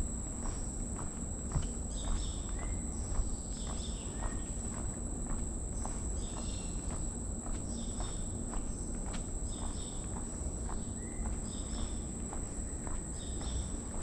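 Footsteps on a boardwalk at a steady walking pace, about two steps a second, over a constant high insect trill and short high chirping calls that repeat about once a second.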